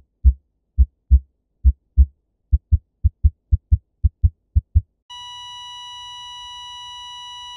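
Heartbeat sound effect: paired low lub-dub thumps that quicken from under one beat a second to about two a second, stopping about five seconds in. Then a continuous high electronic beep sets in, a cardiac monitor's flatline tone.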